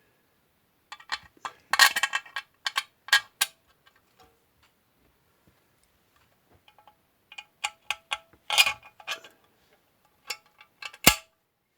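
Metal parts of a chainsaw muffler and its fixings clicking and clinking as they are handled and fitted: two clusters of quick metallic clicks with a quiet stretch between, and one sharp metallic clink near the end.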